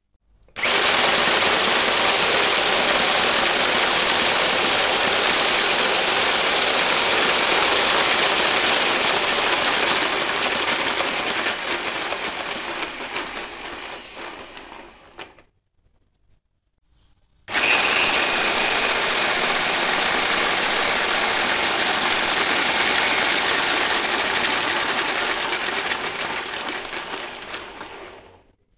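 Electric drill spinning the crankshaft of a 3D-printed Toyota 22RE engine model, about 520 RPM, turning the plastic crank, connecting rods and pistons. It runs twice, for about fifteen and then eleven seconds with a short pause between, each run fading over its last few seconds.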